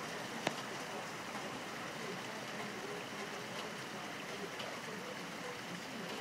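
Hail falling in a steady hiss, with a few sharp ticks as hailstones strike the bird feeder, the loudest about half a second in.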